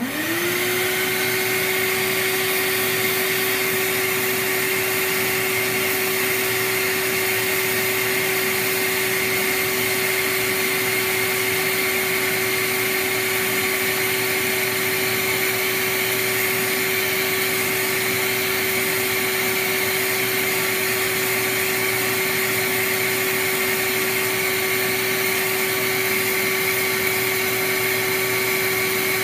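BKM 4 reed profiling machine switching on with its vacuum dust extractor: the motors spin up in under a second to a steady whine over loud rushing air. It runs unchanged while a cane clarinet reed blank is profiled against the sanding wheel.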